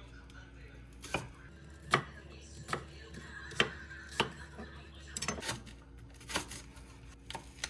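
Kitchen knife chopping on a cutting board: single sharp strikes at an uneven pace of about one a second, with a quick flurry of cuts about five seconds in.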